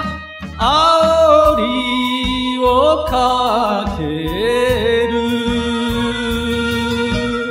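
Japanese enka singing, a solo voice over a backing track with a steady beat. After a short breath between phrases the voice sings a wavering line and ends the phrase on a long held note.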